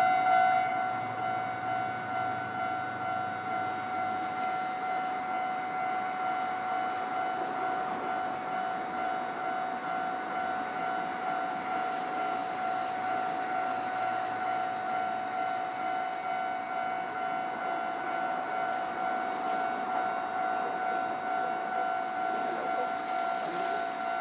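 Japanese railway level-crossing warning alarm ringing, a steady two-tone electronic ding repeated without a break.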